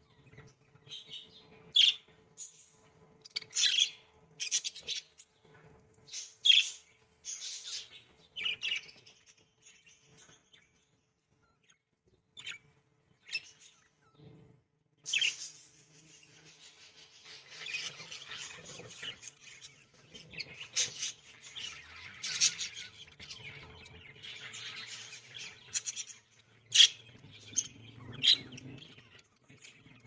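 Budgerigars calling: separate short chirps for the first several seconds, then from about halfway a continuous chattering warble, with a few sharper calls near the end.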